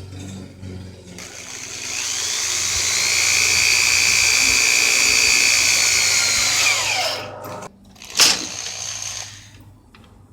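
Electric drill spinning up, running at a steady whine for about five seconds, then winding down and stopping. A single sharp knock follows shortly after.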